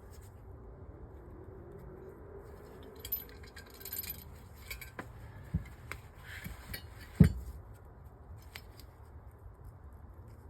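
Small metal carburettor parts and hand tools clinking and tapping as they are handled, a string of scattered light clicks with one sharper knock about seven seconds in.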